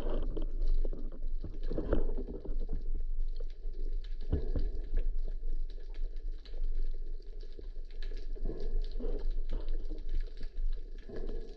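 Muffled underwater sound: water moving around a submerged camera gives a steady low rumble, with many small scattered clicks and crackles throughout.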